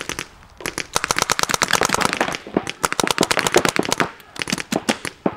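Paintball markers firing rapid strings of shots, about ten a second, in volleys broken by brief pauses.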